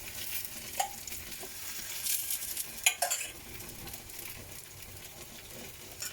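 Murtabak frying in oil and ghee on a griddle, sizzling steadily, with a few sharp clicks of a utensil against the pan about a second in and again around three seconds.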